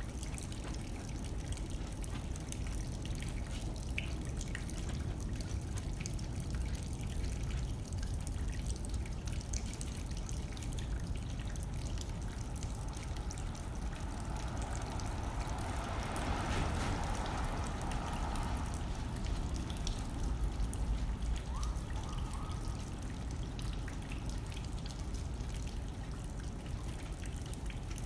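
Rain hitting a window with light wind: a steady wash of noise dotted with the ticks of single drops, swelling louder for a few seconds about halfway through.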